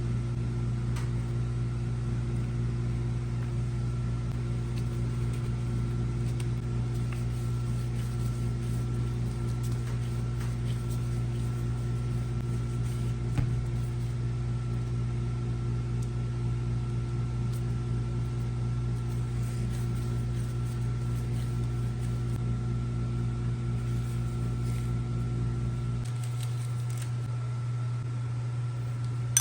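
A kitchen appliance's electric motor humming steadily, with a faint high whine over it. Part of the low hum drops away near the end.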